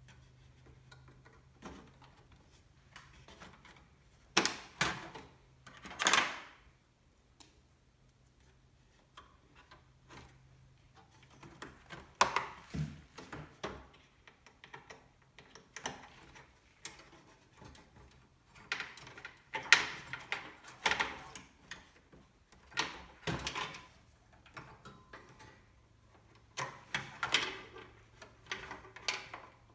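Irregular clicks, taps and short scrapes of computer parts and their packaging being handled and fitted together during a PC build, with louder clusters about four to six seconds in and again around twenty seconds in.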